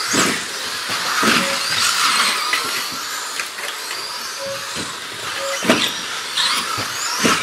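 Several 2WD RC buggies racing, their electric motors whining high and rising and falling in pitch as they throttle up and brake. A few sharp knocks break through, from cars landing or hitting the track edges.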